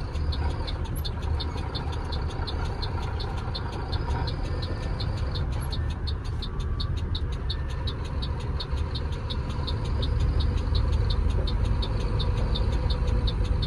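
Truck's diesel engine running while driving, a steady low rumble heard from inside the cab. A steady high ticking, about four ticks a second, runs along with it.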